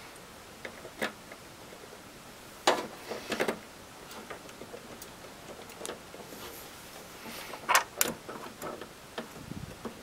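Plastic power-supply plugs and cables clicking and knocking against the drive bays as they are pushed into the DVD drive and hard drive. The sharp clicks come in scattered groups, loudest about a third of the way through and again a little later, and there is a soft low thump near the end.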